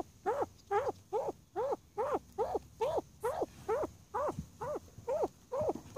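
Pheasant giving a steady series of short calls, about two and a half a second, each call rising and then falling in pitch.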